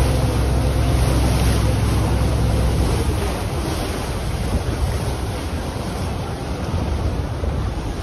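A river boat's engine drones under the rush of water along the hull, with wind buffeting the microphone. The low engine drone eases about three seconds in, leaving mostly water and wind noise.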